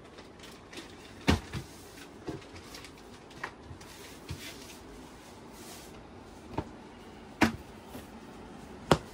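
Packaged bed sheet being handled and unwrapped: brief rustles of its packaging and small clicks, with three sharp knocks, about a second in, past seven seconds, and just before the end.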